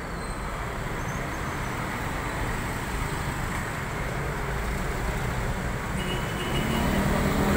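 City road traffic: a steady rush of passing cars and motorbikes, growing louder near the end as a vehicle comes closer.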